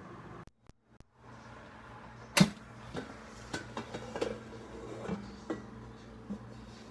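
Kitchenware knocking: one sharp knock a little over two seconds in, then several lighter clicks and knocks, over a low steady hum.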